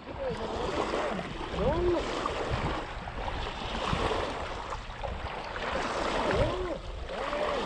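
Small lake waves lapping and washing up onto a gravelly shore, a steady wash of water with gentle surges.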